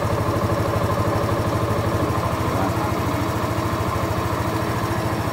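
Hero Xoom 110 scooter's single-cylinder four-stroke engine idling steadily, with an even, rapid beat.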